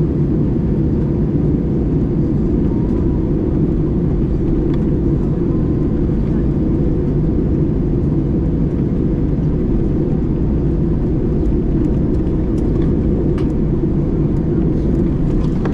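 Airbus A320 passenger cabin noise: a steady, unbroken low roar of the engines and airflow.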